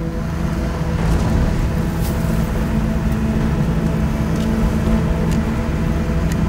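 A car driving slowly on a dirt road, heard from inside the cabin: a steady engine and road rumble, with a few short knocks and rattles from bumps.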